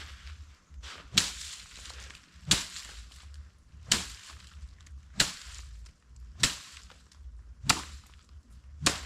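Seven sharp strikes at an even pace, about one every 1.3 seconds, like a tool being swung and striking over and over.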